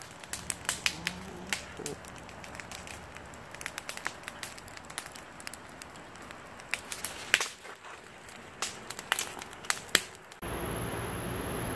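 Wood fire burning in an open fire pit, crackling with many sharp, irregular pops from the burning logs. Near the end it gives way abruptly to a steady hiss.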